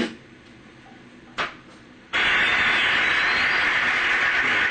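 Concert audience applause played back from a live DVD, starting suddenly about two seconds in and holding steady. Before it there is a brief short sound.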